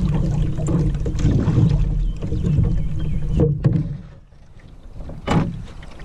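Canoe paddle strokes in the river water over a steady low rumble, with sharp splashes about three and a half seconds in and again just after five seconds.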